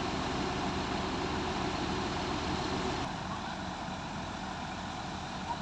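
SANY SY205C crawler excavator's diesel engine idling steadily. About three seconds in the drone drops slightly in level.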